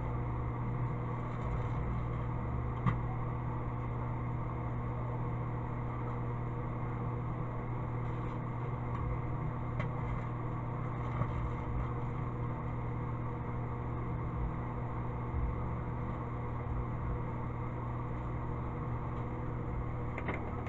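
Microwave oven running with a steady hum, grade 0000 steel wool inside, with a few short crackles as the steel wool sparks, the sharpest about three seconds in.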